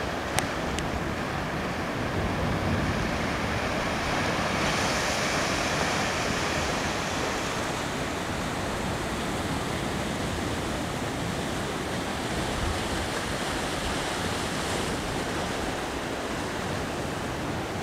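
Steady rushing noise of wind and sea waves, with wind buffeting the microphone. Two brief ticks come just after the start.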